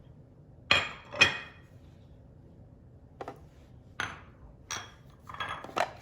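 A utensil knocking and clinking against a hard kitchen container as chunks of canned chicken go into a food processor bowl: two sharp knocks about a second in, then several lighter taps.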